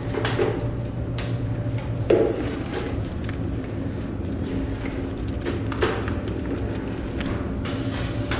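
A steady mechanical hum with scattered knocks and thuds.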